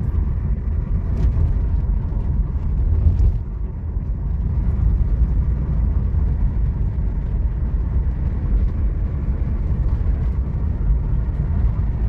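A car driving: steady low rumble of engine and road noise.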